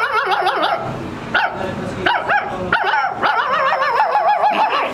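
Human voices imitating dogs: several runs of yelping, whining, wavering dog cries with short breaks between them.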